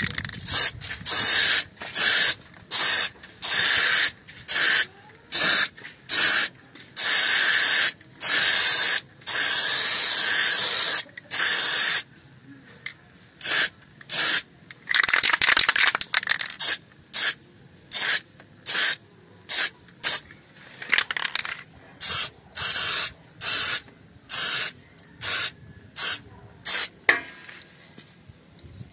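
Aerosol spray-paint can hissing in many short bursts, with a few held for a second or two, as paint is sprayed onto metal.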